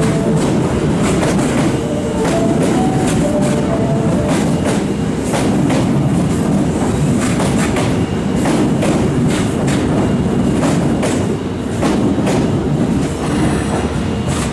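Osaka Metro Tanimachi Line subway train running, with a steady rumble and wheels clicking over rail joints throughout.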